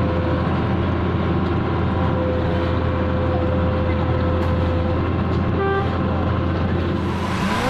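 Heavy diesel road-paving machinery running steadily with a deep hum, with a short beep about five and a half seconds in and a rising swoop right at the end.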